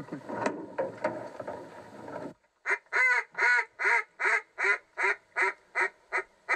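Duck call blown by a hunter: a run of about eleven quacks at roughly two and a half a second, the notes getting shorter toward the end, calling to ducks flying in. Before it, a couple of seconds of rustling noise.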